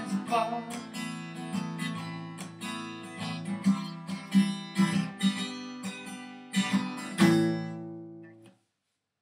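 Steel-string acoustic guitar strummed through an instrumental ending, closing on a last chord about seven seconds in that rings and fades before the sound cuts off abruptly.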